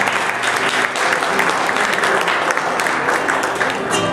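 Audience applauding, with an acoustic guitar being softly plucked underneath the clapping.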